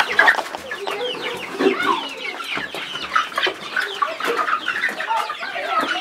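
Chickens clucking and calling in a coop, many short overlapping calls with no break.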